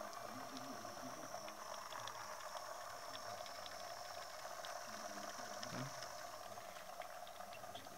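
Small DC-motor peristaltic pump running steadily with a high whine and light clicking, pumping liquid through a plastic tube; the liquid streams into a plastic cup.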